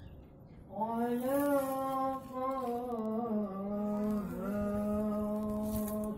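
Background music: a wordless voice humming long held notes that slide slowly up and down. It comes in about a second in, after a brief dip.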